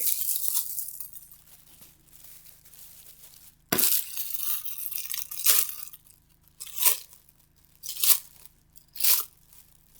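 Packaging being torn open and handled as a mouse pad is unboxed: rustling from a sudden start a little under four seconds in, then three short separate rips near the end.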